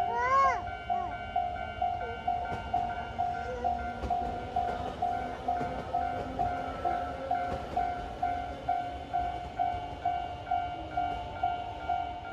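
Japanese level-crossing warning bell ringing, a steady ding repeated about twice a second. About half a second in, a short cry that rises and falls in pitch cuts across it and is the loudest sound.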